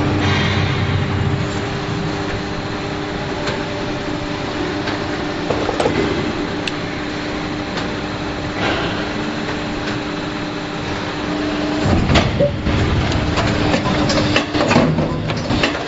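Injection molding machine running with a steady mechanical hum, with a burst of clanks and clatter about twelve seconds in.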